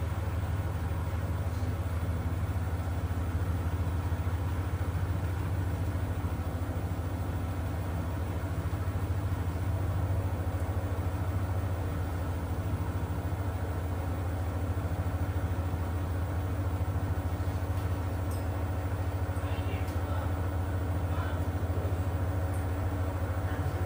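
Grundig FIBERCatcher washing machine running, its drum motor giving a steady low hum as the drum turns the wet laundry, with a few faint ticks late on.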